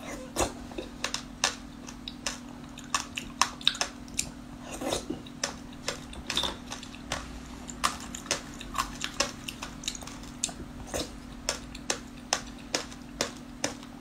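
Close-miked eating: irregular sharp wet mouth clicks of chewing and slurping spoonfuls of a soupy fruit dough-drop dish, with a spoon against a glass bowl, over a steady low hum.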